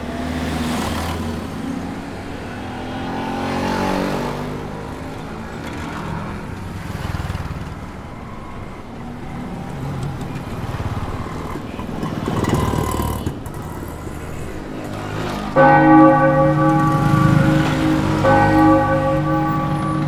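Layered, sustained bell-like ringing tones over a soft, shifting wash of sound. The ringing becomes louder and steadier about three-quarters of the way through.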